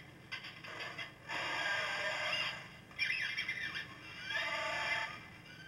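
Chewbacca-versus-mouse-droid sound effect from a toy electronics kit's sound chip, played through its small speaker in several bursts with rising chirps. A 100-ohm resistor in series limits the power to the speaker, so it plays somewhat muted.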